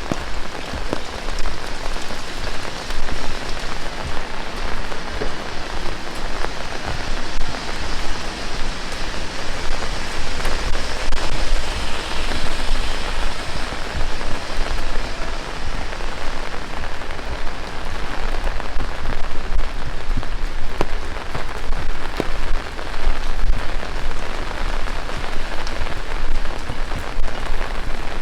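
Heavy rain falling steadily, a dense hiss of many drops striking the ground and nearby surfaces.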